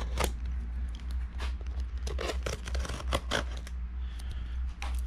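A parcel's inner packaging and tape being cut and torn open, in a run of short, irregular scratchy strokes, over a low steady hum.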